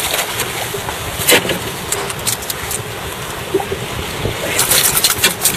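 Steady wind and sea-surf noise, with a few short sharp noises: one about a second in and a cluster near the end.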